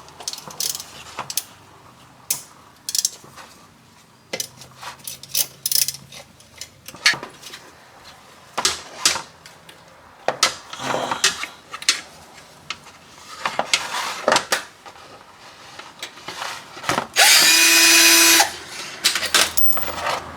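Transmission pan bolts being removed: scattered clicks and knocks of hand tools on metal, and about 17 seconds in a power tool runs loudly for just over a second with a steady whine.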